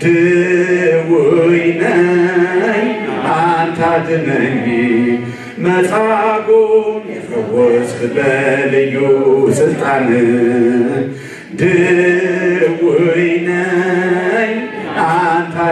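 Unaccompanied Ethiopian Orthodox hymn in Amharic, chanted by a man's voice into a microphone, with long held notes. There are short breaks about five and a half and eleven and a half seconds in.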